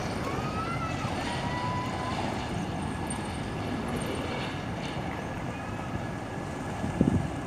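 Freight train of boxcars rolling away on curved track, a steady rumble of wheels on rail. A couple of short low thumps near the end.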